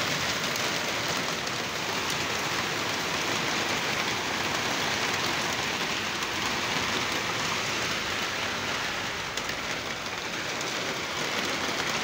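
Heavy thunderstorm downpour: a steady, dense hiss of rain pouring onto a wet road.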